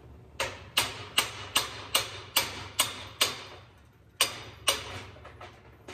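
Hammer striking a steel driveshaft yoke clamped in a vise, about ten quick blows with a short metallic ring after each and a brief pause after the eighth. He is hammering on the yoke where the U-joint caps sit, trying to knock out caps that have been partly cut with a grinder.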